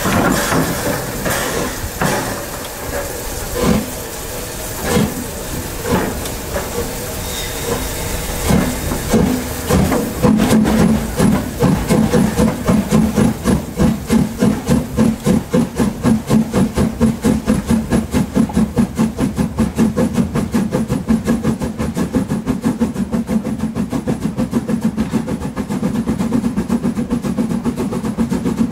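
Metre-gauge steam locomotive pulling away: at first a few slow, widely spaced exhaust chuffs with steam hissing, then from about ten seconds in a fast, even beat that quickens to about four chuffs a second.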